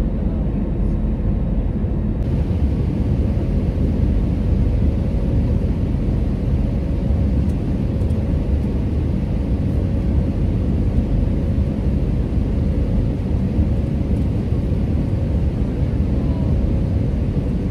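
Airbus A321 cabin noise in flight, heard from a window seat over the wing engine: a steady low rumble of jet engine and airflow with a faint steady hum.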